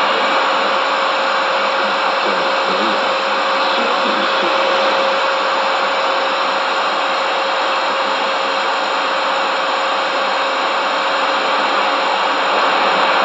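Kenwood R-1000 communications receiver tuned to 27.340 MHz AM, giving a loud, steady hiss of static with a constant whistle tone running through it: the interference heard on the CB band.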